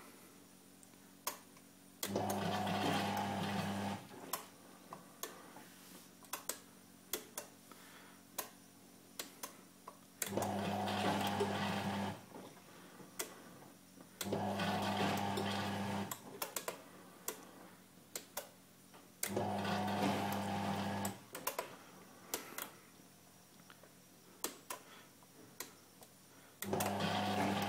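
Washing machine drum motor running in short bursts of about two seconds, five times, with pauses of several seconds between them, the start-stop rhythm of a wash cycle. Irregular sharp ticks and clicks fill the pauses.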